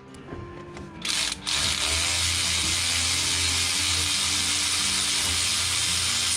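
A power tool running steadily at full speed for about five seconds, starting about a second in with a brief stutter, then cutting off.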